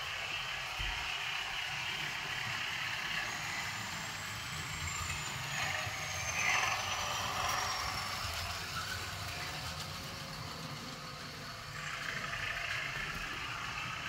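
Bachmann model diesel locomotive's DCC sound decoder playing a running diesel engine through its onboard speaker, with the rumble of the train on the track. It grows louder about halfway through as the train passes close by.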